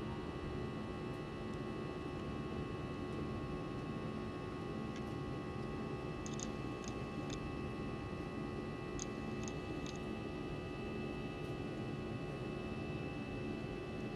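Steady drone of an airliner cabin during the climb after takeoff: even engine and air noise with several steady tones running through it. A few faint clicks come in two small groups around the middle.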